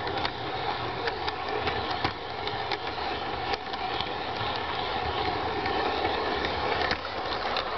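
G-scale LGB garden-railway train running along the track, heard from on board: a steady whirr of the electric motor and gears, with irregular clicks as the wheels cross rail joints.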